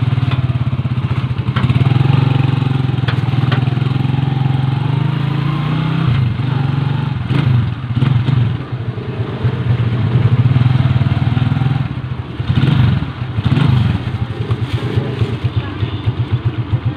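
Small engine running steadily while the vehicle travels, the throttle easing off briefly a couple of times.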